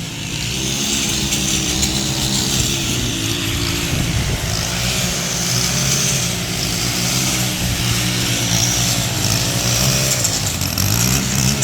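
Gas leaf blower running steadily, its small engine's pitch wavering a little over a rush of blown air.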